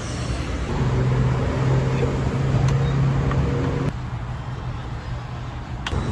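Gas-station fuel dispenser running while filling a fuel can with E85: a steady low hum that starts about a second in and stops abruptly near four seconds, over a steady background of traffic-like noise, with a single sharp click near the end.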